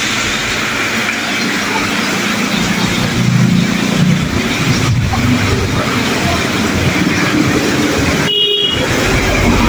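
Heavy tropical rain pouring down steadily, a loud even hiss, broken briefly near the end by a short beep.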